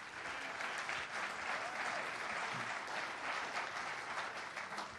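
Audience applauding, many hands clapping steadily and fading near the end.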